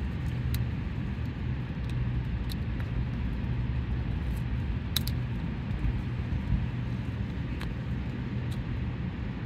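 Steady low background rumble, with a few faint, scattered clicks.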